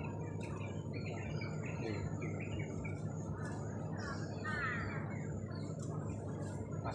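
Birds chirping in short, repeated calls, with a quicker run of notes a little past the middle, over a steady low background rush.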